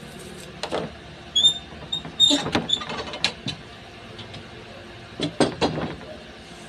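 Knocks and clatter of a long metal bar clamp being handled and set down on a plywood sheet, in three clusters, the busiest from about one and a half to three seconds in. A few short, high squeaks come near the start of that busiest cluster.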